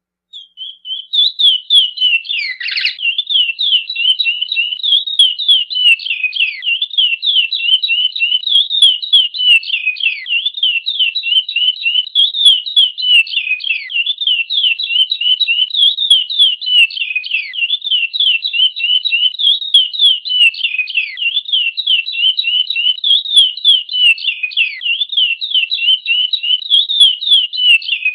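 Chestnut-bellied seed finch (curió) singing its 'praia' song: a long unbroken run of fast, clear whistled notes, mostly sliding downward, about three or four a second.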